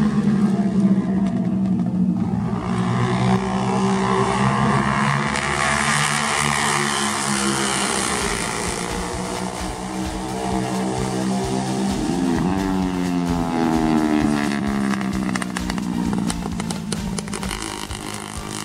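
Several racing motorcycles passing at high revs, their engines rising and falling in pitch as they shift gears and go by, with one bike's pitch rising sharply about twelve seconds in.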